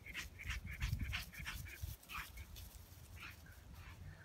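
A pug panting and whimpering in quick short breaths, several a second at first, then sparser, over a low rumble on the microphone.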